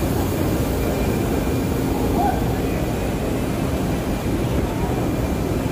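Steady background din of a machinery trade-fair hall: a low, even rumble of running machines and ventilation, with faint distant voices mixed in.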